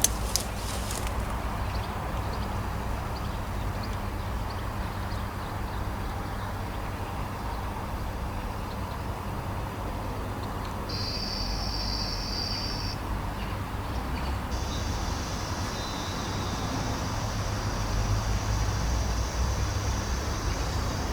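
Steady low rumble of background noise, with a few handling clicks in the first second and a thin high hiss that switches on about halfway through, stops briefly, then comes back and stays.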